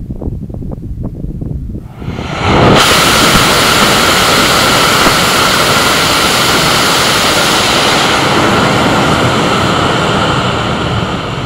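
HTPB-propellant solid rocket motor with an aerospike nozzle on a static test stand: after a few faint crackles, it lights about two seconds in with a sudden rise into a loud, steady rushing noise with a constant high tone in it. This is a steady burn with no chuffing, easing a little near the end as the burn tails off.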